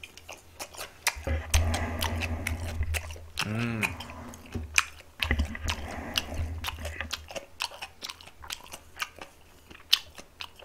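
Close-miked chewing of boiled pork wrapped in radish kimchi, with many wet mouth clicks and smacks and a brief hum about three and a half seconds in.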